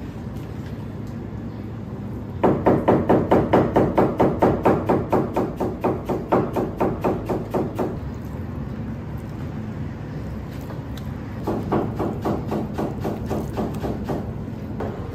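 Rapid rhythmic chopping strikes at about four a second, typical of street-food prep, in two runs: a loud run a few seconds in that fades, then a shorter, quieter run near the end.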